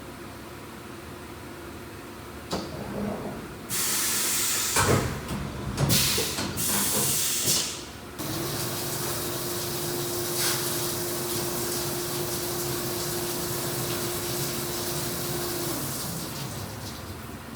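Haas VF-2SS CNC machining centre running: several seconds of loud hissing in bursts, then a steady whine that holds for about seven seconds and winds down near the end.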